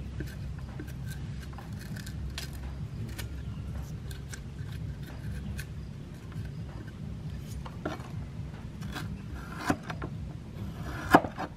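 Steel cleaver scraping and paring the skin off a fresh wild bamboo shoot held in the hand, a string of short scraping strokes over a steady low hum. Near the end come two sharper knocks, the cleaver striking the wooden chopping board.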